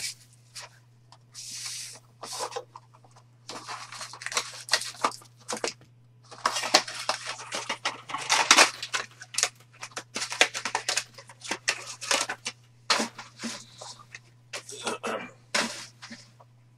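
Trading card boxes and packs being opened by hand: plastic wrapping crinkles and tears in irregular bursts of crackling. A faint steady low hum runs underneath.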